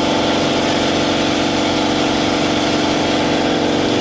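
A machine motor running steadily at a constant pitch, with an even, unchanging hum.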